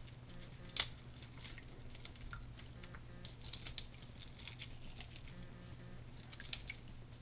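Pomegranate pieces being broken apart by hand in a bowl of water, knocking the seeds loose: faint crackling, small taps and light water sounds, with one sharper click just under a second in. A steady low hum runs underneath.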